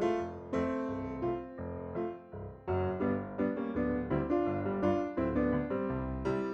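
Background piano music, notes struck several times a second with a brief pause about two seconds in.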